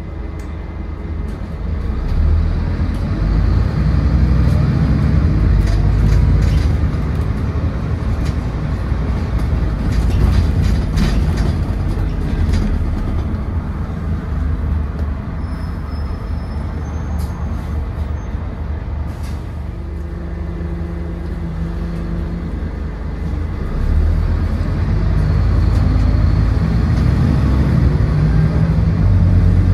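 Scania N230UD double-decker bus, with its nine-litre five-cylinder diesel and ZF Ecomat automatic gearbox, heard from inside the passenger saloon while driving. The engine pulls harder about two seconds in, eases off midway, and pulls up again near the end. Clicks and rattles come from the bus interior.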